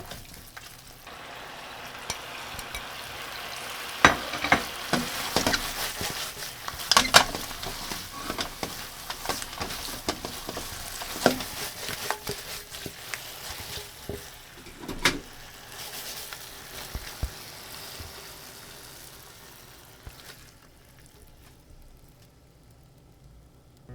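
Thick fried tofu sizzling in a frying pan as it is stirred, with frequent sharp clicks of the utensil against the pan. The sizzle dies down near the end.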